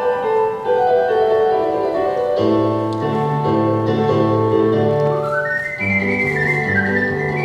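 Ocarina playing a quick melody over piano accompaniment. The piano's steady chords come in about two and a half seconds in, and the melody climbs to high notes a little past halfway.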